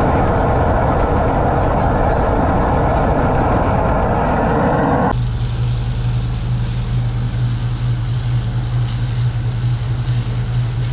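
Steady, loud mechanical running noise. About five seconds in it cuts abruptly to a steady low motor hum with a hiss above it.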